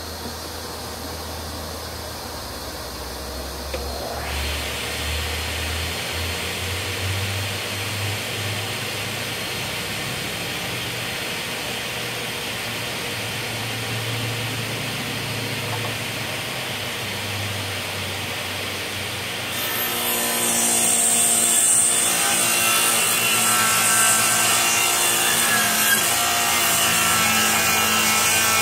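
Delta table saw running and ripping long wooden boards. The cutting noise swells about four seconds in and gets louder again about twenty seconds in.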